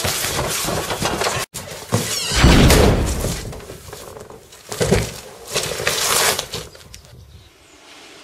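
Loud edited action-film sound effects: three swells of rushing noise, the loudest about two and a half seconds in, with a sharp break just before it, then fading away.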